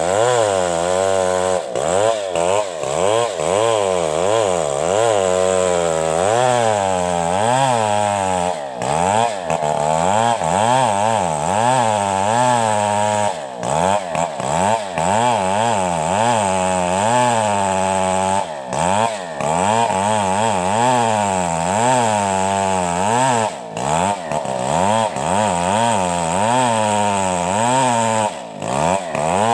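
STIHL two-stroke chainsaw ripping lengthwise through a coconut log under load, its engine pitch wavering up and down continuously as the chain bogs and frees in the cut. The engine dips briefly about every five seconds.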